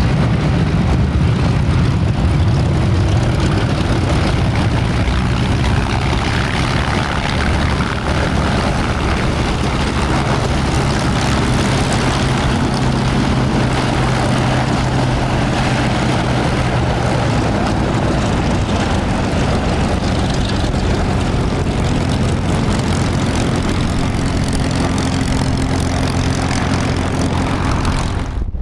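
Piston engines of Second World War propeller fighters running loudly with a steady drone; the engine note shifts about two-thirds of the way through, and the sound cuts off abruptly at the very end.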